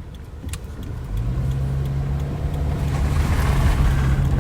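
Car heard from inside the cabin, picking up speed: a steady low engine drone comes in about a second in, and road noise builds up as it goes.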